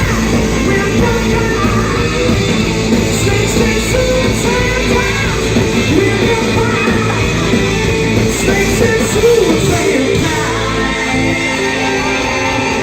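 A rock band playing live, with a singer's vocals over electric guitar and drums.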